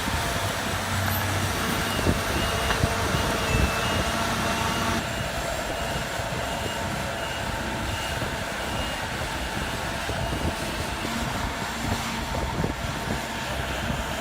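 Heavy machinery running with a steady engine noise, over which a high-pitched beeping alarm repeats in short, quick beeps until about three seconds before the end. About five seconds in the sound drops a little quieter.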